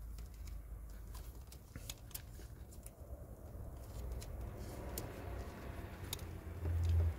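Faint scattered clicks and rustling from hands working on a car's cut ignition wiring, over a low steady hum that grows louder briefly near the end.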